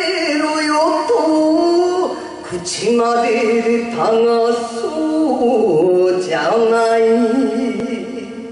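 A woman singing a line of a kayō rōkyoku (narrative enka) song into a microphone, her melody sliding and wavering between held notes, over backing music.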